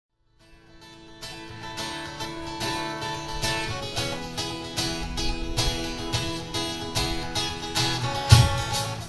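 A live band playing, with guitar strumming over a steady beat, fading in about half a second in. A single loud hit stands out near the end.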